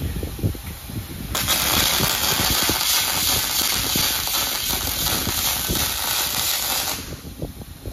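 Robotic MIG welding arc: the cobot's wire-fed torch strikes an arc about a second in and runs a steady crackling hiss along a steel frame, then cuts off sharply near the end.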